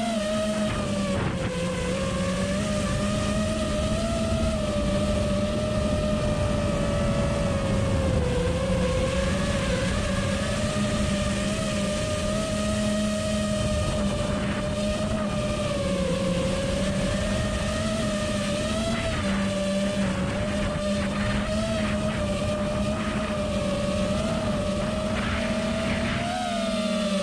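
Brushless motors and propellers of a 5-inch FPV quadcopter (2008-size 1950 KV motors on a 6S battery) running at flight throttle: a steady whine whose pitch rises and dips slightly as the throttle changes.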